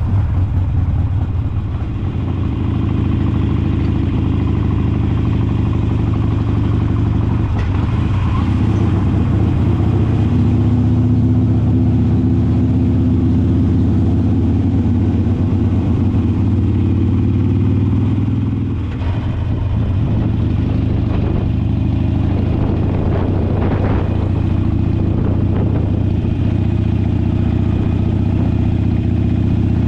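Harley-Davidson V-twin motorcycle engine with a cheap aftermarket slip-on muffler, heard from the rider's seat, running steadily under way. The engine pulls harder through the middle, and there is a brief dip a little past halfway.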